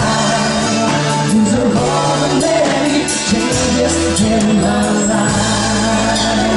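A band playing a song with a lead vocal singing over steady bass notes.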